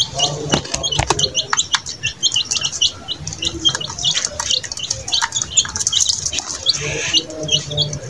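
A small group of chicken chicks peeping continuously: short, high cheeps, several a second, overlapping one another.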